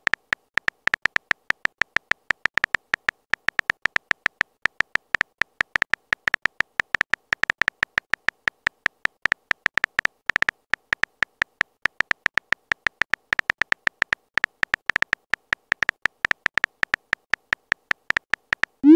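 Texting-app typing sound effect: a fast, steady run of short keyboard tap clicks, several a second, one for each letter of an animated message being typed. At the very end comes a short rising swoosh as the message is sent.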